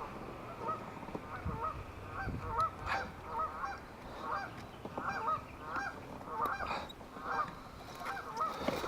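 Geese honking: a steady run of short, hooked honks, about two to three a second.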